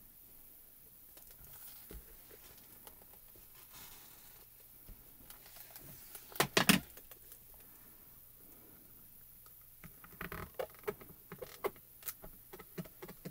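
Handling noise from a plastic stamp positioning tool: a quick cluster of sharp clicks about six and a half seconds in, then a run of lighter clicks and taps near the end as hands press down on the closed lid to stamp the image.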